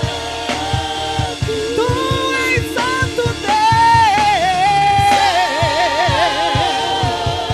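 Live gospel worship song: sung melody with long, wavering held notes over a band with a steady drum beat.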